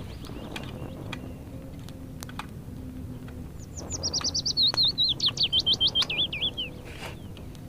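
A forest bird sings a fast series of whistled notes, about seven a second, starting about three and a half seconds in. The notes run for about three seconds and fall in pitch toward the end.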